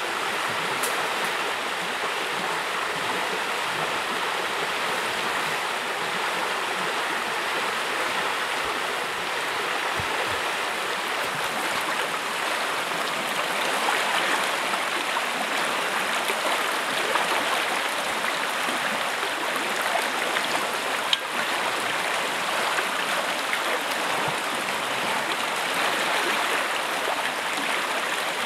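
Shallow stream rushing steadily over rocks and small rapids. One sharp tap about three-quarters of the way through.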